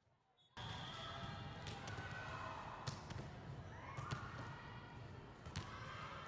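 Volleyball being hit during a rally in a gym: several sharp smacks of hand on ball, a second or so apart, over the hall's crowd murmur. The sound starts after about half a second of silence.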